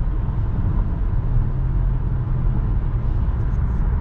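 Steady low rumble of road and tyre noise inside the cabin of a car moving along a freeway.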